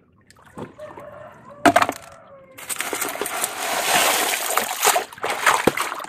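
Muddy water splashing and sloshing as a toy excavator is swished through it, starting about two and a half seconds in. Before that, a faint drawn-out call.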